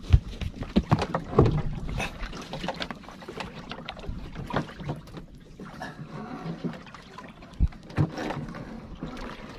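Irregular knocks and bumps on a small wooden boat's planks as a person moves about on board, over water slapping against the hull.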